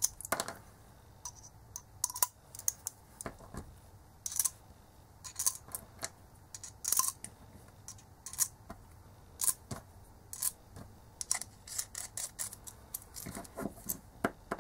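Irregular small metallic clicks and taps: precision screwdriver bits being handled and fitted, then a small screwdriver working at the tiny screws of a metal-cased voice recorder.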